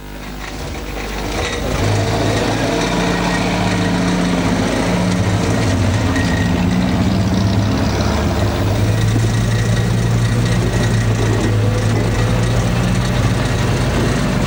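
An old car's engine running as the car drives. It fades in over the first two seconds, then runs steadily with a low hum.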